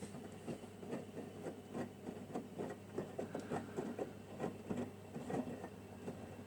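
Samsung Ecobubble washing machine running a cold wash: a steady low hum from the machine, under irregular soft patters and splashes from the wet load tumbling in the drum. The patter dies away near the end while the hum continues.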